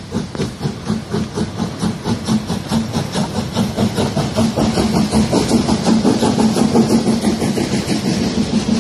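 Narrow-gauge steam locomotive and its coaches passing close by over a level crossing, with a rapid, regular beat and a steady hum. Both grow louder about halfway through as the engine goes by.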